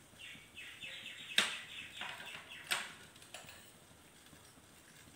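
Two sharp metallic clicks, a steel spoon knocking on the rim of the steel pot as salt is tipped in, about a second and a half and nearly three seconds in. Behind them a faint run of quick, falling chirps, like a small bird twittering, stops a little after three seconds.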